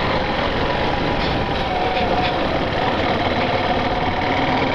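Yamaha Factor 150's single-cylinder engine running steadily as the motorcycle rolls over cobblestones, under a dense steady rumble of road and wind noise.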